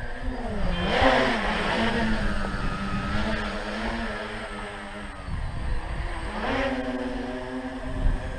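Tricopter's electric motors and propellers whining. The pitch swoops up and down about a second in, then holds fairly steady, and rises again near the end as the throttle is opened and the craft lifts off.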